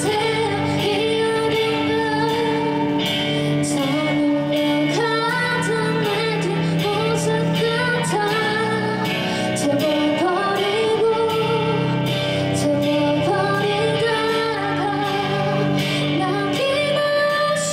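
Live band music: a woman singing lead through a microphone over two electric guitars, electric bass, drums and keyboard, with drum hits keeping a steady beat.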